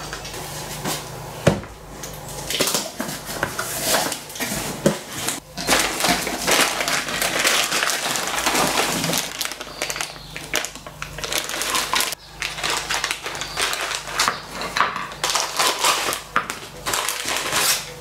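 Clear zip-lock plastic bags crinkling and rustling as they are handled and opened, with irregular sharp crackles throughout.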